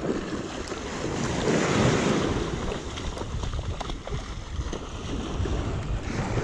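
Small waves washing up a sandy beach, with wind buffeting the microphone and the splashing of waders moving through the shallows. The wash swells louder about two seconds in.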